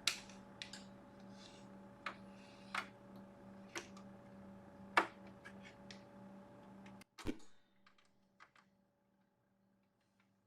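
Scattered sharp clicks of a computer mouse and keyboard, picked up over a steady electrical hum. About seven seconds in, a thump sounds and the hum drops away, leaving only a few faint clicks.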